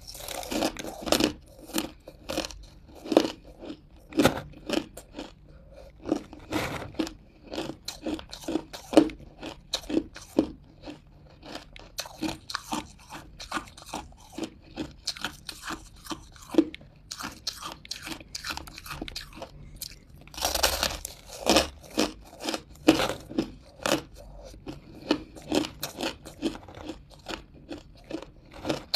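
Hard crunches of a person biting and chewing frosty chunks of ice, called buckwheat chunks, close to the microphone. The crunches come in a steady run of sharp cracks, with a louder, denser burst of crunching about two-thirds of the way through.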